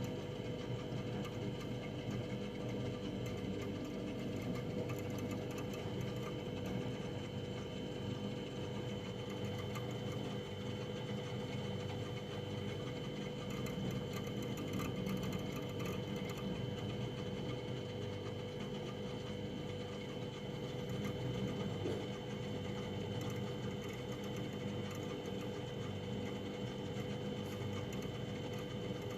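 Household freezer running: a steady mechanical hum with a constant whine over it, unchanging throughout.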